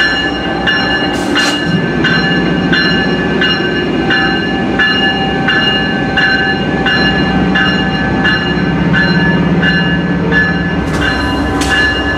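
Amtrak Siemens ACS-64 electric locomotive moving slowly at the platform, its bell ringing steadily about twice a second over a low running hum. A short hiss of air comes near the end.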